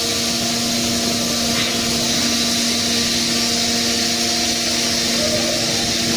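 Heavy tunnelling machinery running at the face of a collapsed tunnel heading: a constant mechanical hum with several steady tones, and a hiss above it, unchanging throughout.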